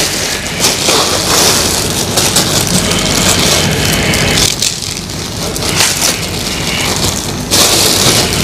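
Black plastic bag crinkling and rustling as it is handled close by, a continuous loud crackle with a sharper surge near the end.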